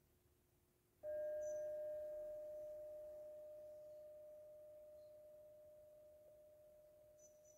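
A metal singing bowl struck once about a second in, ringing with one steady tone and fainter higher overtones, slowly fading away.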